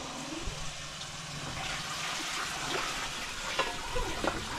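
Water poured from a plastic jug into a pot of boiling water on a wood-fired stove, splashing steadily into the pot.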